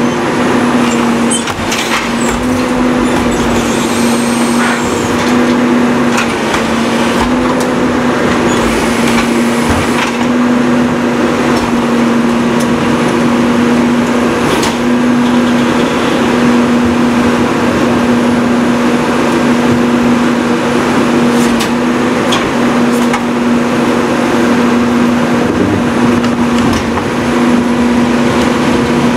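Heil Formula 4000 rear loader garbage truck working with its hydraulics engaged: a steady loud hum under the running truck engine as the packer panel cycles. A few sharp knocks and bangs come from a cart being tipped into the hopper, mostly in the first couple of seconds and again around ten and fifteen seconds in.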